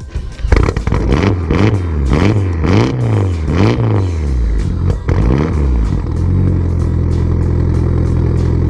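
An engine blipped up and down in quick revs about five times, then settling into a steady idle.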